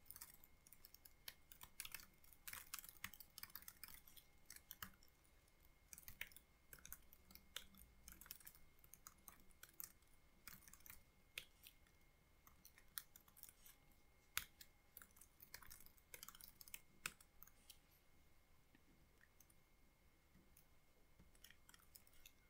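Faint typing on a computer keyboard: quick, irregular keystrokes in short runs. The typing stops about four seconds before the end.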